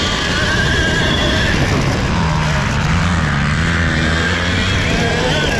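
Alta MXR electric dirt bike's motor whining, its pitch rising and falling with the throttle, over wind rumbling on a helmet-mounted camera.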